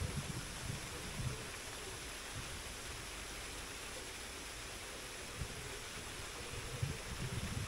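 Steady outdoor hiss, with gusty low rumbling at the start and again near the end.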